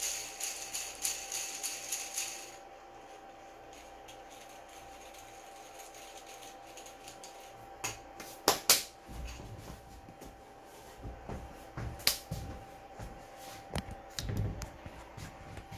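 3D-printed plastic bearing spun by hand, its printed rolling elements rattling with a fast run of clicks that stops about two and a half seconds in. Later come a few sharp clicks and low handling knocks.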